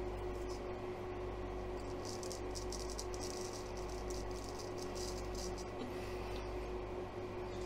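A Chinese straight razor scraping through week-old stubble in a run of short rasping strokes, thickest from about two to six seconds in, over the steady hum of a fan.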